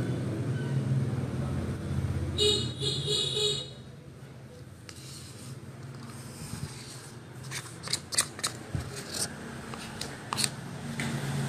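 Sharp light clicks and scrapes of a spatula working thick face-mask paste against a plastic bowl, several in a cluster in the second half. Underneath is a low road-traffic rumble that drops away about four seconds in, with a brief high tone shortly before that.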